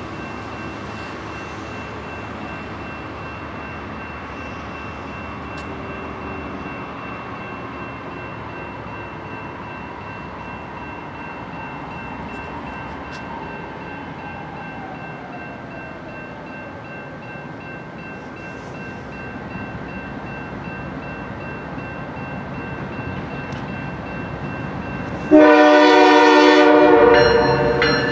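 Norfolk Southern diesel locomotives hauling a loaded coal train approach with a steady low rumble. Near the end the lead locomotive's air horn sounds one loud blast of about two seconds.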